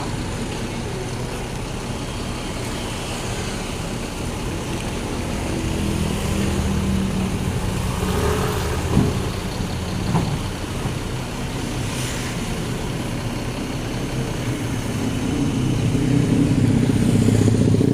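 Motor vehicle engine running nearby, with a couple of sharp knocks midway; the engine sound grows louder near the end.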